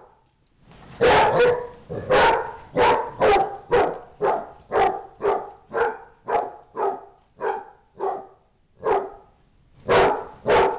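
A dog barking over and over in short, evenly spaced barks, about two a second. The barks start about a second in, pause briefly, and pick up again near the end. These are excited barks during rough play-fighting between dogs.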